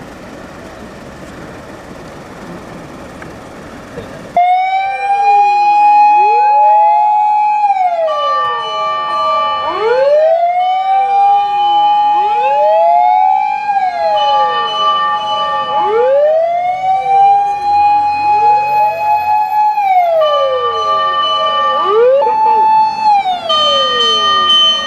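Japanese fire engine sirens wailing, cutting in suddenly about four seconds in after a steady background rush. Several sirens overlap out of step, each rising, holding and falling in cycles of about four seconds, with a steady higher tone cutting in and out.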